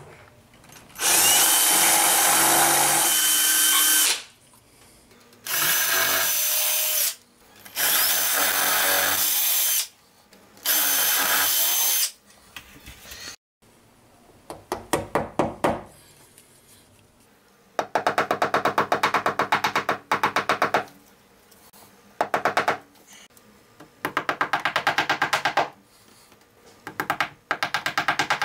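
Cordless drill with a 1/4-inch bit drilling anchor holes through plaster, in four bursts of about one and a half to three seconds each. Then a small hammer tapping plastic wall anchors into the holes, in quick runs of light taps lasting a few seconds each.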